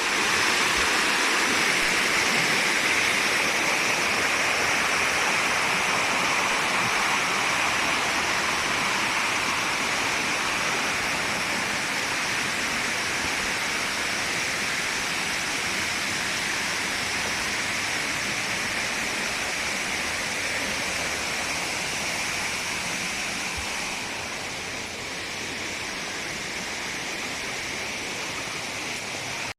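Steady rush of running and falling water, a little quieter for the last few seconds.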